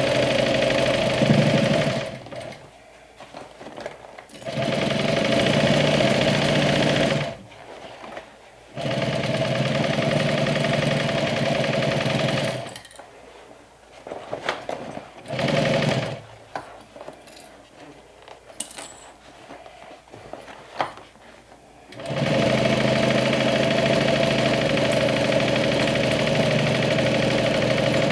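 Sewing machine stitching a seam in several runs of a few seconds each, stopping and starting again, with small clicks and handling in the pauses between runs.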